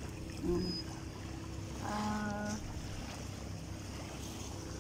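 Steady low outdoor rumble with a faint constant hum, and a short held voice-like call about two seconds in.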